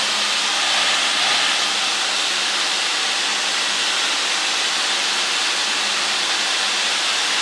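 Steady engine and airflow noise inside a light aircraft's cabin in flight: an even hiss with a faint low engine hum beneath it.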